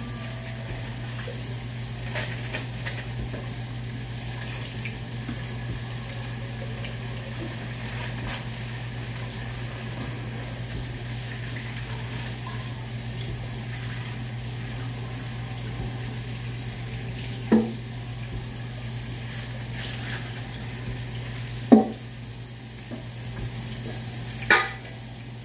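Steady hum and hiss of kitchen background noise, with three sharp clinks of dishes being set into a dish drying rack, about two thirds of the way in, a few seconds later and near the end.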